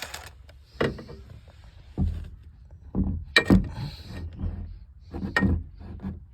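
Irregular knocks and clatter of tools and parts being handled, about half a dozen separate knocks with light rustling between.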